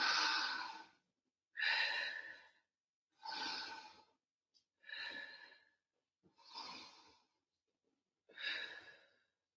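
A woman breathing out forcefully through the mouth with exertion, six times, about every one and a half to two seconds: one exhale per leg lift while holding a high plank.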